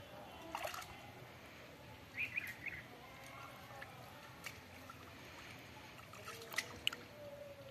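Hands groping and stirring in shallow muddy water, with small splashes and trickling at irregular intervals.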